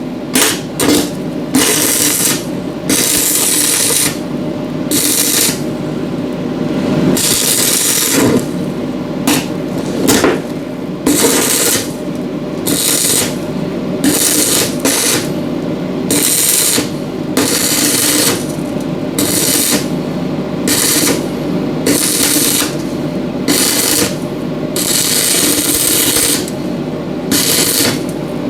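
Stick (arc) welder on the bus door frame, its arc crackling and hissing in repeated short runs of half a second to a second and a half with brief pauses between, as in tack or short-bead welding. A steady hum runs underneath.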